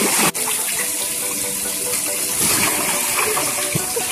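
Water gushing and spraying steadily on a backyard water slide, with a brief drop-out about a third of a second in.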